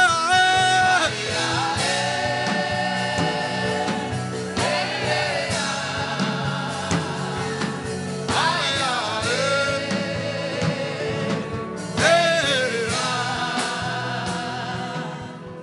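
Gospel worship music: a singing voice holds long, wavering notes over a steady instrumental backing, returning in phrases every few seconds.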